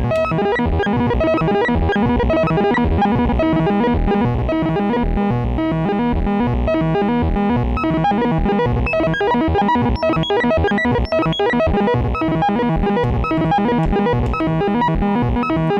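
Make Noise XPO synthesizer oscillator playing a fast sequence of short notes from a René sequencer. A second sequence at its other 1V/oct input shifts the pattern between octaves, so the same notes of the original sequence recur in different ranges.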